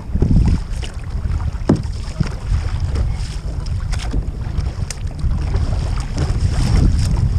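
Wind buffeting the microphone with a steady low rumble, over the splash and drip of a kayak paddle dipping into calm water and lifting out, with a few sharp drips or splashes.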